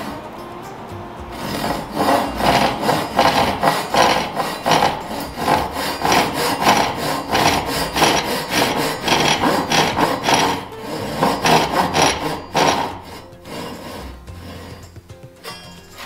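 Japanese hand saw cutting across a wooden frame piece by hand, rapid back-and-forth rasping strokes. It starts about a second and a half in and stops a few seconds before the end.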